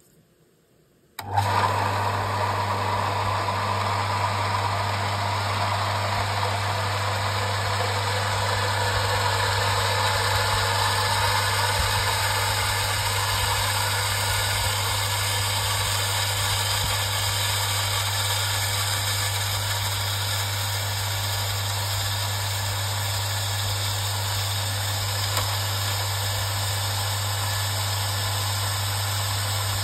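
Metabo domestic water pump switching on suddenly about a second in and then running steadily with a deep motor hum and a rushing noise, building pressure in the system as the gauge needle climbs.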